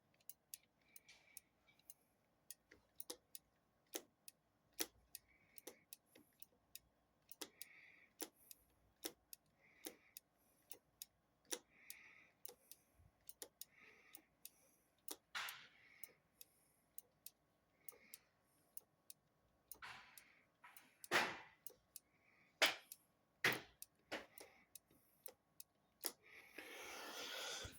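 Faint, repeated light clicks from a motorcycle's front brake lever being pumped, with a few louder knocks in between. No pressure is building in the brake line: the owner suspects bad brake hoses.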